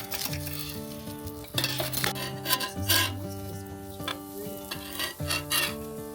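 Soft background music with held chords, over cooking sounds: a utensil stirring and scraping against cookware, with light sizzling.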